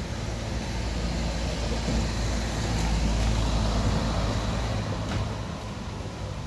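Motor vehicle running with road noise. The low engine hum swells to its loudest a few seconds in, then eases off.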